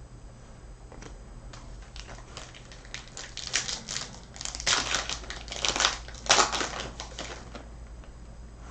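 Foil trading-card pack wrapper crinkling in the hands, in irregular bursts that are loudest in the middle, as a pack is opened and handled.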